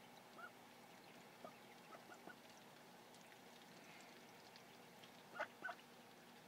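Ancona ducklings peeping softly in short, scattered chirps, with two louder peeps close together near the end.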